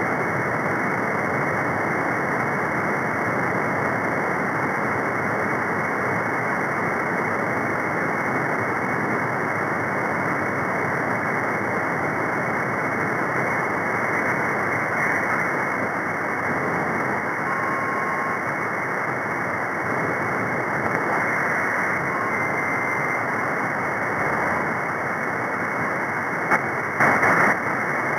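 Steady hiss of band noise from an SDRplay RSP1 receiver tuned to the CB free band between transmissions. A couple of faint short whistles come through in the middle, and there are short louder bursts near the end.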